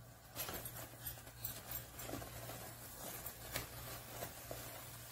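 A spoon stirring and scraping in a pot of coarse rice rava cooking in thin coconut milk, a run of irregular soft scrapes and taps over a low steady hum.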